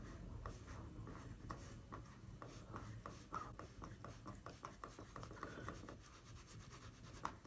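Lenovo 600 Bluetooth silent mouse sliding back and forth across a desk mat, a faint rubbing with small irregular scuffs.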